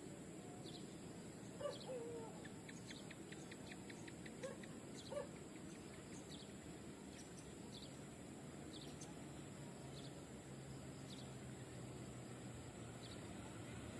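Birds chirping repeatedly with a short trill, and a few brief lower calls in the first five seconds. From about eight seconds in, the faint low drone of the approaching diesel freight locomotive sets in and grows slightly louder toward the end.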